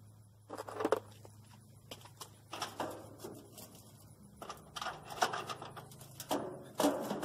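Steel rod cooking grates of a Nexgrill gas grill being set back in place over lava rocks: metal clinking and rattling on metal in four short bursts.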